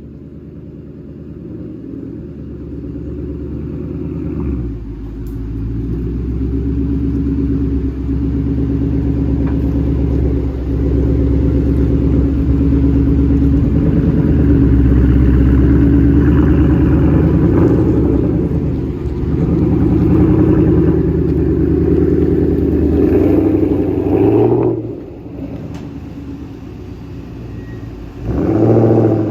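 2020 Mustang GT 5.0 V8 running through a freshly installed Borla S-type exhaust with X-pipe. The note grows louder over the first half, drops back about 25 seconds in and picks up again near the end.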